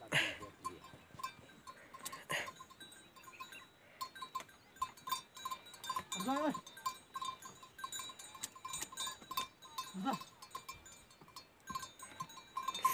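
Faint sounds of a pair of oxen pulling a wooden plough: a light, evenly repeating ticking tone, with a short rising-and-falling call about six seconds in and a lower, shorter one near ten seconds.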